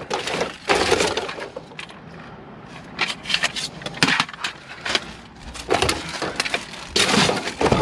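Plastic bags, paper and junked electronics in a dumpster being rummaged through by hand: crackling, rustling and scattered knocks of hard pieces being shifted, with a denser, louder stretch near the end.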